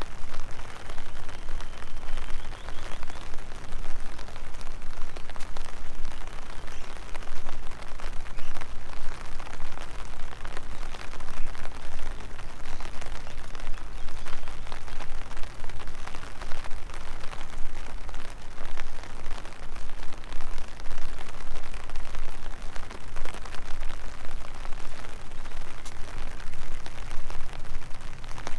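Steady rain, a dense crackle of individual drops striking close by, with a constant low rumble underneath.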